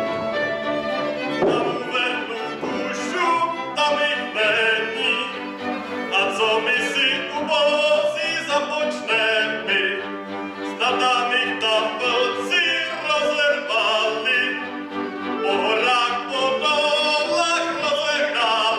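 Folk ensemble playing a lively carol tune, with fiddles carrying the melody.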